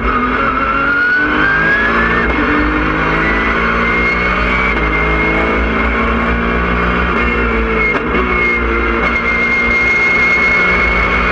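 Porsche 997.1 Cup car's 3.6-litre flat-six engine running hard on track, heard from inside the cabin. It rises in pitch over the first couple of seconds, then holds with a high steady whine over it, with a brief dip about eight seconds in.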